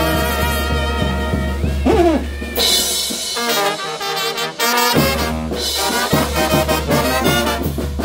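Oaxacan brass band playing a chilena mixteca, with trumpets, trombones, saxophone and sousaphone over bass drum and drum kit. A held chord opens, a sliding note comes about two seconds in, the low bass drops out for about a second and a half, and the full band comes back in on a strong beat about five seconds in.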